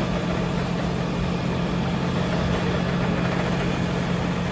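Fire engine's diesel engine running steadily at idle, a continuous low drone.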